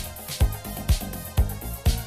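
Disco-house dance music with a steady four-on-the-floor kick drum, about two beats a second, over a sustained bassline, with a keyboard played live on top.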